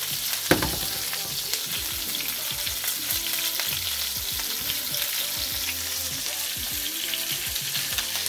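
Carrots and broccoli sizzling in oil in a frying pan, a steady hiss with small crackles. One sharp knock about half a second in, the loudest sound.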